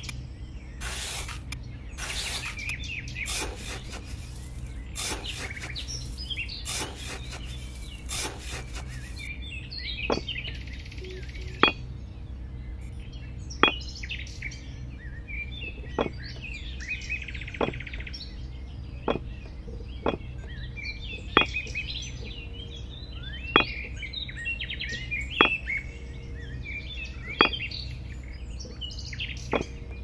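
A small hand trowel scrapes through damp sand in several strokes. Then miniature clay bricks click sharply, one every second or two and faster near the end, as they are set down on a plastic toy trailer. Birds chirp throughout.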